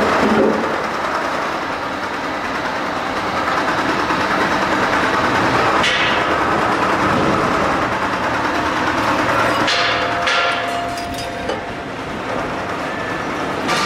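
Machinery running steadily and loudly, with a sharp metallic knock about six seconds in and a few more knocks and a short steady whine about ten seconds in.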